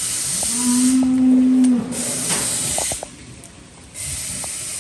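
A dairy cow mooing once, a long call held at a steady pitch. Three short bursts of hissing come and go around it.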